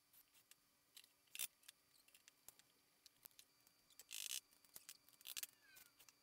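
Near silence broken by scattered faint clicks and a few short scraping rasps, the loudest about four seconds in: small metal latch hardware and hand tools being handled.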